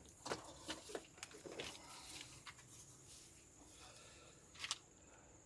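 Faint clicks and rustling of small screws and parts being picked through by hand, with one sharper click a little after four and a half seconds in.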